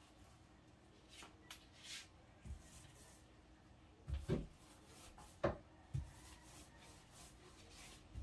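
Faint rubbing of paint being applied by hand to a wooden kitchen cabinet, with several soft knocks against the wood in the middle, the loudest two about a second apart.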